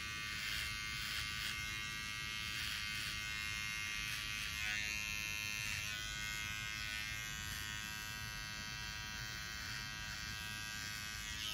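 Electric beard trimmer running with a steady buzz as it is worked through a beard, setting the cheek and neck lines.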